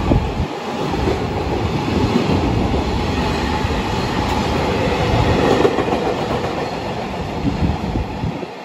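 JR Freight container flatcars running past on the rails at speed, a loud, continuous noise of wheels and wagons going through the station.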